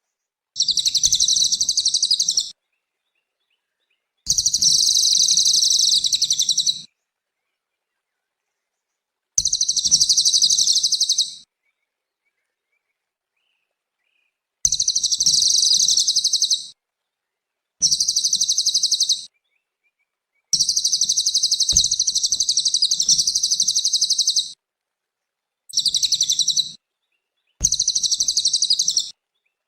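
Cililin songbird singing: bursts of rapid, high-pitched chattering song, each about two to four seconds long, eight of them, separated by gaps of complete silence, as in an edited bird-song training recording.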